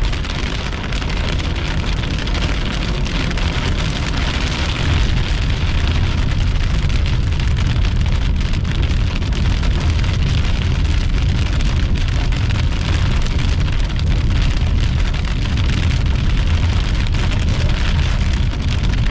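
Heavy rain falling steadily from a thunderstorm, plain rain rather than hail, with a dense, even patter of drops.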